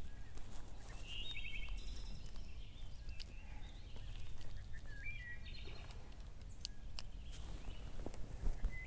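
Outdoor ambience: a steady low rumble with a few short high chirps and some small scattered clicks.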